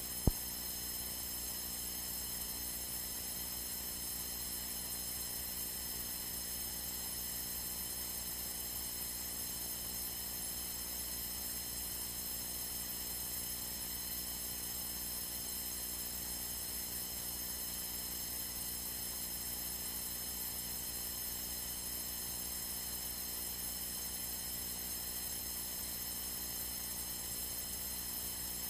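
Steady electrical hum and hiss with a stack of fixed whining tones, from an aircraft's radio and intercom audio feed with no transmissions on it. A single sharp click comes just after the start.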